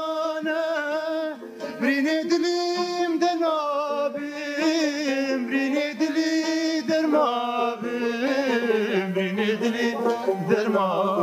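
Kurdish folk song: a man singing long, wavering held notes over two long-necked plucked lutes.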